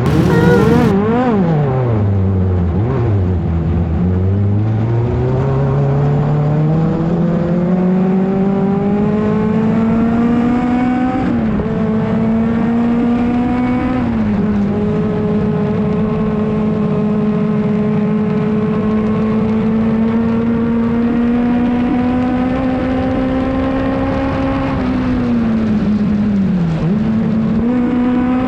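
Off-road race car's engine at racing speed. Its pitch dips and rises a few times at first, then climbs steadily, with two short dips at gear changes around the middle. It then holds high and even, and drops and climbs again near the end.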